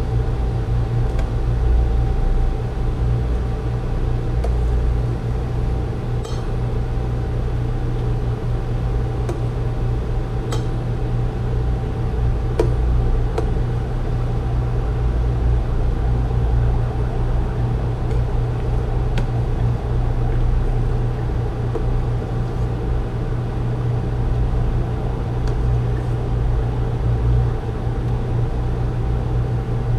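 Steady hum and rumble of an induction cooktop running under a pot at the boil, with a thin steady whine over it. A few light clinks of a stainless ladle against the pot as the foam is skimmed.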